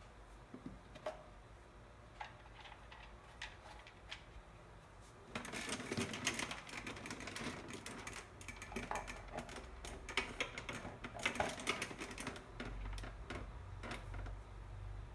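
Plastic parts of an electric fan being handled and fitted together: a few scattered clicks, then from about five seconds in a busier run of clattering and clicking.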